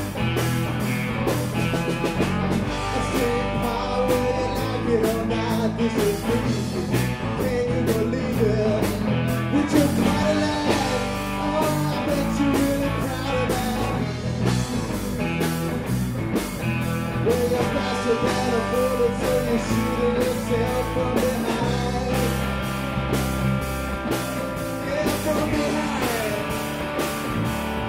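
A rock band playing live: guitar over bass and drums, with a steady beat.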